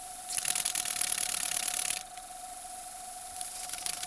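Two-cylinder single-acting model steam engine running on compressed air, its exhaust a rapid hissing chuff. It starts about a third of a second in, stops at about two seconds, and starts up again near the end.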